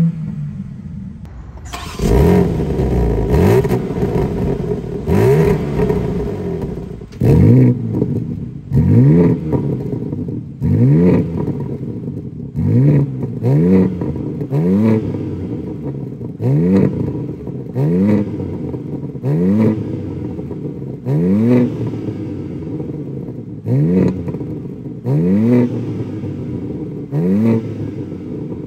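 BMW M4 Competition's 3.0-litre inline-six engine and exhaust, free-revved while parked. It runs steadily for the first several seconds, getting louder about two seconds in. From about seven seconds in it is blipped roughly once a second, each rev rising sharply and dropping straight back.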